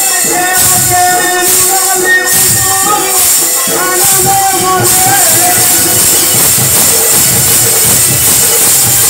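Loud live folk music accompanying a stage dance: a wavering melody over steady percussion, with jingling strikes about every two-thirds of a second. About five seconds in the melody falls away and the playing becomes a denser, more even din.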